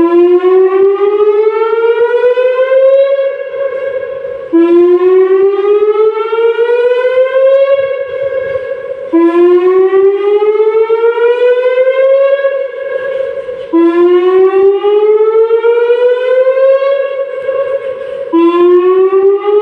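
Tsunami warning siren sounding a repeating rising wail in a test: each cycle climbs in pitch for about three seconds, holds briefly, then drops back and starts again, about every four and a half seconds.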